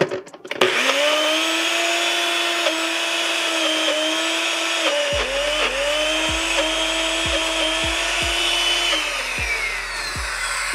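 Countertop blender motor starting about half a second in and running hard on a thick cream-cheese mixture, its pitch dipping now and then under the load. It switches off about nine seconds in and winds down with a falling whine.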